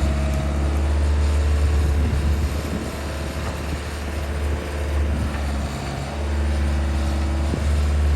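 Skid steer engine running steadily, a little quieter and less even for a few seconds in the middle.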